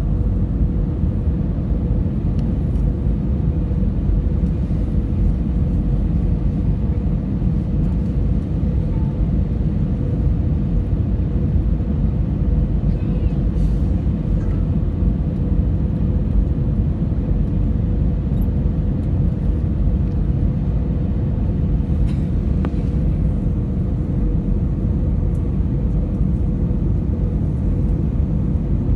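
Airliner cabin noise in flight: a steady low roar of engines and airflow, with a steady hum held above it.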